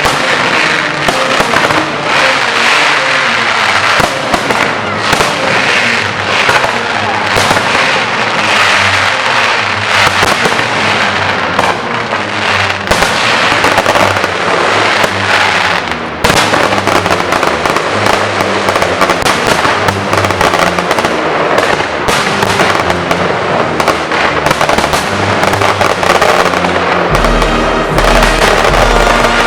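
Aerial fireworks display, shells bursting and crackling in rapid, dense succession with music playing alongside. Near the end a deep bass line comes in under the bursts.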